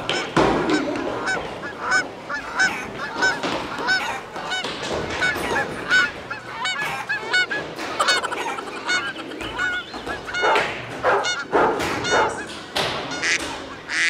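Many short honking calls, repeating and overlapping several times a second, with a few louder calls near the end.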